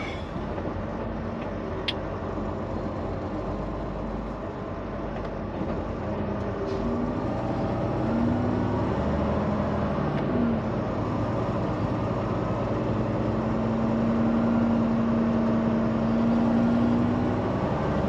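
A semi truck's diesel engine runs inside the cab as the truck pulls slowly up an incline. Its steady drone grows gradually louder and settles on a held tone in the second half. A single sharp click comes about two seconds in.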